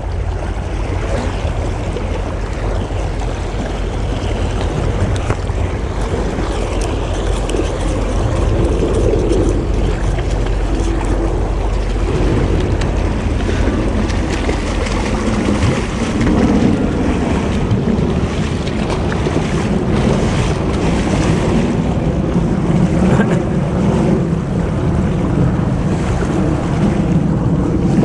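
Shallow creek water rushing over stones, with wind buffeting the microphone.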